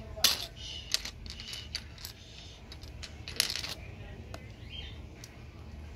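Small plastic Lego pieces clicking and clattering against each other and a hard surface as they are handled: a few sharp separate clicks, the loudest about a quarter second in and another about three and a half seconds in.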